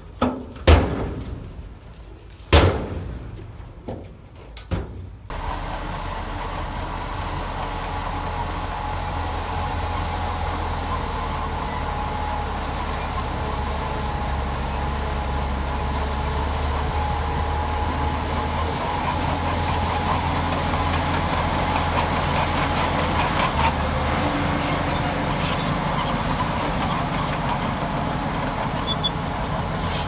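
A few sharp knocks in the first few seconds. Then, from an abrupt change about five seconds in, a heavy diesel engine of earthmoving machinery runs steadily and grows slowly louder.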